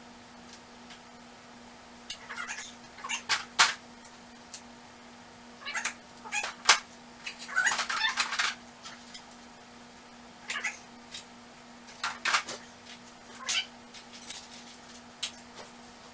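Metal hand tools clinking and clattering as they are handled and dropped into a tool box, in irregular bursts of sharp knocks with short ringing, over a steady low hum.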